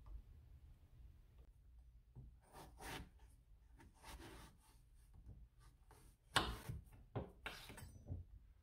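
Chef's knife cutting into a whole apple on a wooden cutting board: soft scraping and crunching of the blade in the flesh, then a run of sharper crunches and knocks in the second half, the loudest about two-thirds of the way through.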